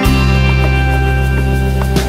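Background music with sustained bass notes and steady held tones.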